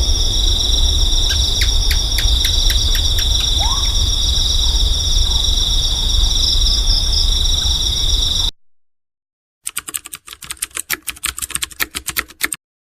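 Night insects, crickets or cicadas, keep up a loud steady high-pitched chorus over a low rumble, with a quick run of about a dozen sharp clicking calls in the first few seconds. The chorus cuts off abruptly; after a second of silence comes a fast, dense run of clicks for about three seconds.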